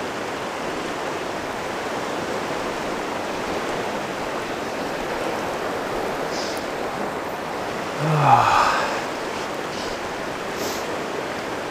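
Pecos River rushing: the steady noise of fast, high water running through riffles. About eight seconds in, a short low sound falling in pitch, like a brief grunt, rises above the river.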